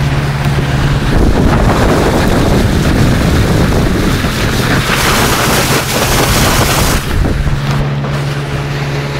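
Vikhr two-stroke outboard motor running steadily with the boat under way, its hum masked for several seconds in the middle by heavy wind buffeting on the microphone and rushing water.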